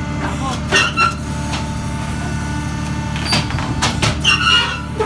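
Hydraulic power unit of a block-making machine running with a steady motor-and-pump hum while its valve levers are worked. Several short clanks come about a second in and again in a cluster from about three seconds on.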